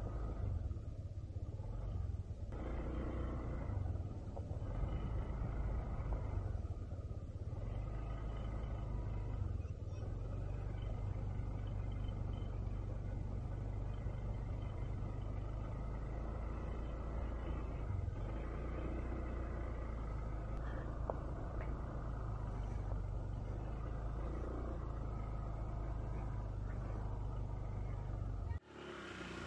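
Honda ADV 160 scooter's single-cylinder engine running at low speed as it is ridden slowly over beach sand, with a steady low rumble. The sound drops out briefly near the end.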